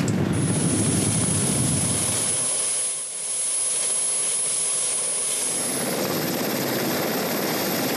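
Westland Sea King helicopter running with rotors turning: a steady rush of rotor and twin Gnome turboshaft noise with a thin, high turbine whine over it. The deep rumble drops away about two and a half seconds in and partly comes back near six seconds.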